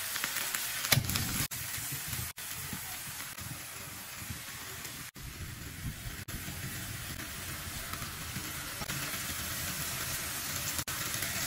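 Cabbage and carrots sizzling and steaming in a nonstick frying pan with a little water, while a spatula stirs them and tosses in instant noodles. A sharp knock of the spatula against the pan comes about a second in.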